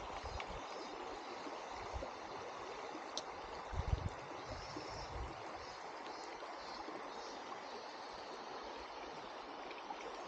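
River water running steadily over a riffle, with a brief low thump about four seconds in.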